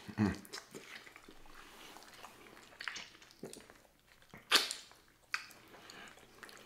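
Close-miked wet chewing, lip smacking and sucking on sticky, gelatinous pig feet, with scattered short smacks; the loudest comes about four and a half seconds in.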